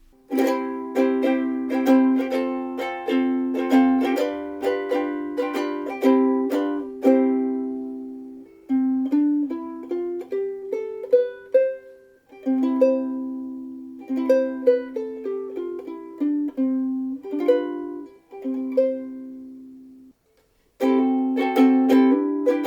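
LUNA MV-2S soprano ukulele, solid Honduras mahogany body strung with black nylon strings, being played: brisk strummed chords, then a slower passage of chords with single picked melody notes ringing out, a brief stop about twenty seconds in, and strumming again near the end.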